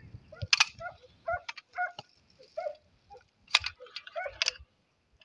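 Hunting dogs barking and yelping: many short, scattered barks from several dogs, with a few sharper cracks among them.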